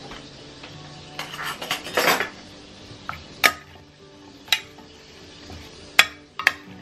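Seasoned sweet potato planks being tossed in a roasting pan: a scraping, rustling stretch, then four sharp clinks against the pan.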